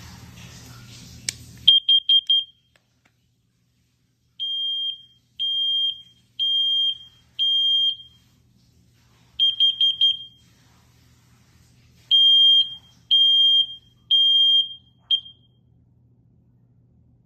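Combination smoke and carbon monoxide alarm beeping with a shrill single-pitched tone in changing groups: four quick beeps, then four longer beeps about a second apart, another four quick beeps, then three longer beeps.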